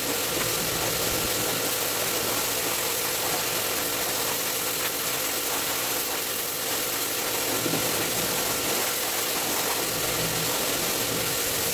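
Steady machine noise: a motor running at an even pace, with a constant hiss and a low hum.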